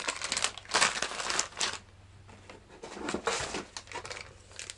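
Plastic soft-bait packages crinkling as they are handled, in two bursts of rustling with a short lull between.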